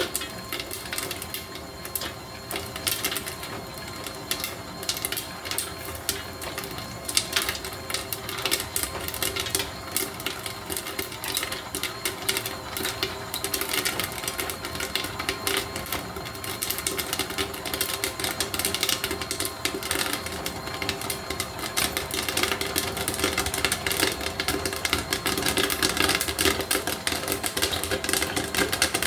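Homemade popcorn machine running: a steady motor hum under a dense, irregular clicking and clattering that grows louder toward the end.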